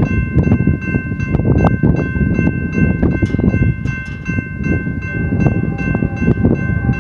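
A railroad crossing bell rings over and over over the loud, heavy rumble of a diesel freight train drawing near the crossing.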